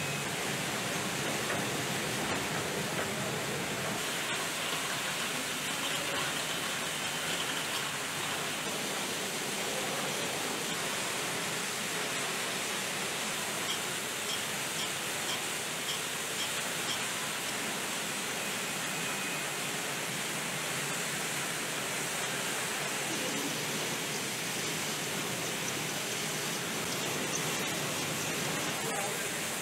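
Steady hiss and whir of automated syringe and blood-tube assembly machines running on a production floor, with a short run of faint rapid clicks about halfway through.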